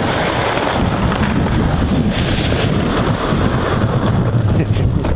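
Wind buffeting the microphone: a steady, loud low rumble with hiss over it.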